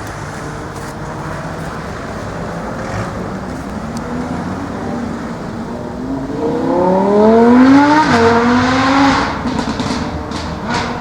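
Lamborghini Huracán's V10 engine: a steady low rumble, then about six seconds in a hard acceleration with the engine note climbing steeply, briefly dropping near eight seconds and climbing again. It fades after about nine seconds, and a few sharp exhaust crackles follow near the end.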